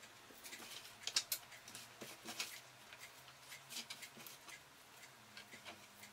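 Faint, scattered light taps and rustles of sliced leek being scooped by hand off a cutting board and dropped onto a stainless-steel tray, loudest a little after a second in.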